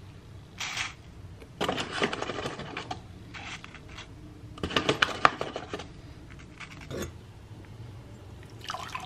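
Kitchen handling sounds: a foil packet rustling and crinkling, with small clinks and clatters, in a few short bursts. The sharpest clicks come about five seconds in.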